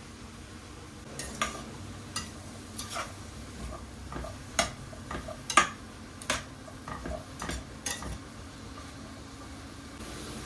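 A metal utensil stirring diced potato, chickpeas and onion in a stainless steel frying pan. There are a dozen or so scrapes and clinks against the pan between about one and eight seconds in.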